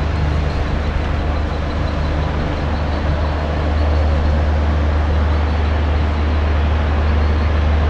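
Double-decker express train running at speed, heard on board: a steady, loud rumble of wheels on rails with a constant rushing noise, a little louder from about three and a half seconds in.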